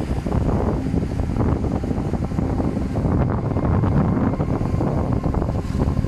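Sea surf washing over and between rocks on a stony shore, a steady churning wash with most of its weight low.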